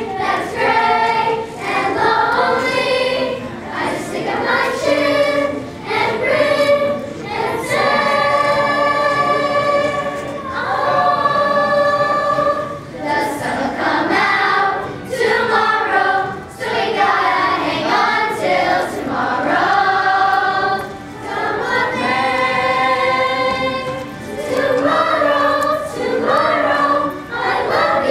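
A children's chorus singing together as an ensemble, with several long held notes.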